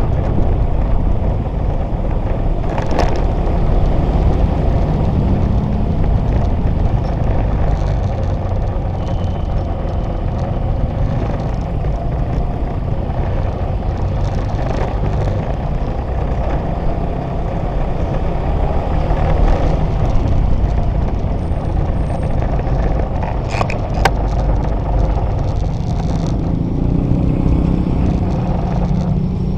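Motorcycle engine running as it rides slowly through congested city traffic, among the engines of surrounding cars and scooters.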